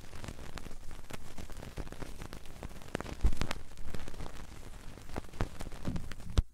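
Vinyl record surface noise with no music: the stylus crackles and pops along the groove of a 12-inch 45 RPM record, as at the end of a side. Two louder low thumps come about halfway through and just before the end, and the sound cuts off suddenly.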